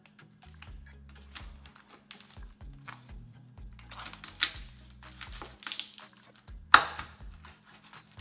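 Chef's knife cutting and cracking through raw lobster tail shells on a wooden cutting board: irregular clicks and cracks, the sharpest about seven seconds in. Background music with a bass line plays underneath.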